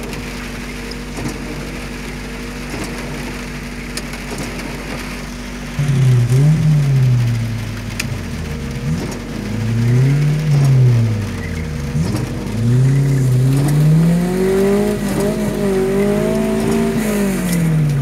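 Off-road 4x4 jeep engine revving in three hard surges that rise and fall in pitch, with a steady engine hum beneath: a vehicle stuck in slippery mud trying to pull free. The first third holds only the steady hum; the last surge is the longest.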